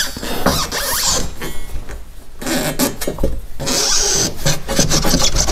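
Irregular metallic knocks, clicks and scraping as a new rear coil spring is handled and worked into its seat, with two short lulls.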